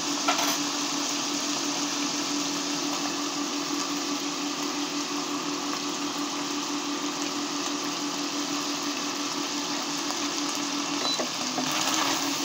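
Pork cubes sizzling steadily in hot oil in a stainless frying pan, over a steady low hum. The meat and carrot are stirred near the end, and the sound grows a little louder.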